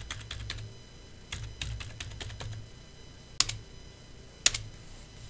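Computer keyboard keys being typed in a quick run of clicks as a password is entered, with two sharper, louder key presses about three and a half and four and a half seconds in.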